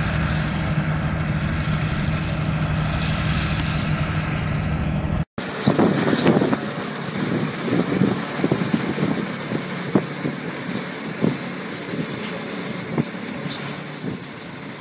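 A steady motor hum that cuts off abruptly about five seconds in. Then a farm tractor runs while pulling a straw-spreading machine, with uneven rattling and a few sharp knocks.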